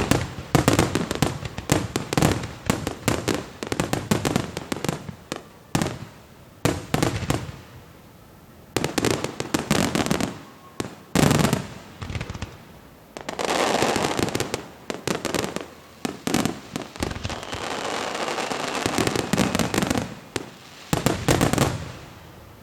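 Star mine fireworks barrage: aerial shells bursting in rapid, overlapping volleys of booms, with stretches of dense crackling. A last cluster of loud bursts comes just before the end.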